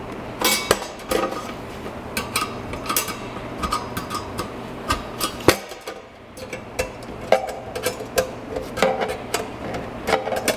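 Flathead screwdriver prying and bending the sheet-metal locking tabs of an Alpine single-DIN radio sleeve held in a plastic dash mounting kit: a run of irregular metallic clicks, scrapes and knocks, with one sharper knock about halfway through.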